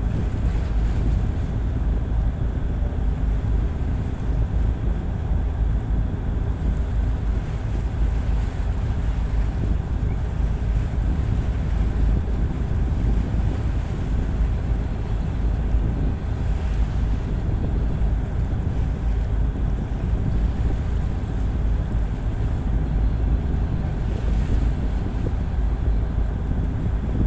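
Wind buffeting the microphone over the steady drone of a tugboat's diesel engine running underway, with wash of the sea beneath.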